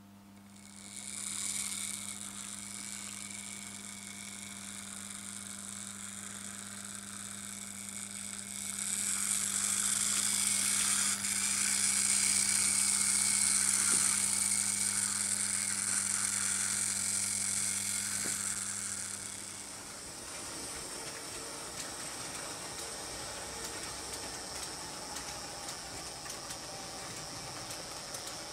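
Märklin H0 model trains running on metal M-track: a steady whir of small motors and gears and wheels on the rails, over a steady low hum. It grows louder for about ten seconds as the green Swiss 'Crocodile' electric locomotive passes close, then after a cut about two-thirds through a quieter steady running sound goes on.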